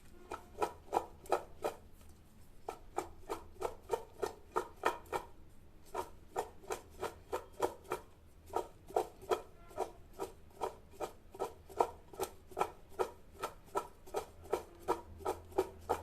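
Cut brinjal pieces being tossed and mixed by hand with turmeric and salt in a bowl: short rhythmic strokes, about three a second, with a few brief pauses.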